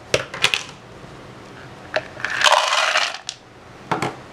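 Dry cacao beans rattling into a hard plastic container: a few sharp clicks at first, then a dense clatter of beans for nearly a second about two seconds in, and a couple of last clicks.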